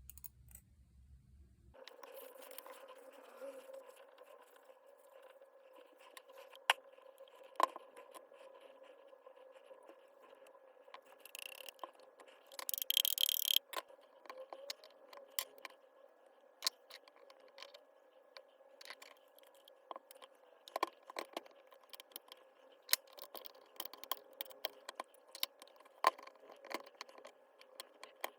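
Hands working on a disassembled cordless hammer drill: scattered sharp clicks and scrapes of small parts, with a short burst of noise near the middle, over a faint steady hum.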